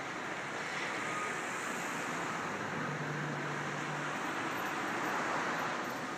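Steady rushing outdoor noise, with a low hum for about a second near the middle.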